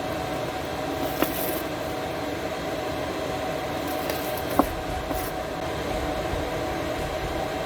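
Steady mechanical hum, with two sharp clicks about a second in and again just past the middle, and brief rustling.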